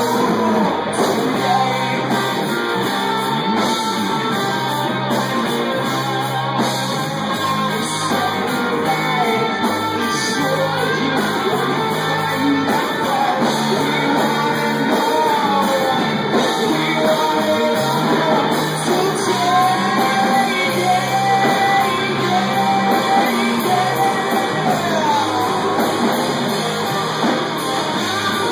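Live rock band playing: distorted electric guitars and drums, with a sung vocal over them.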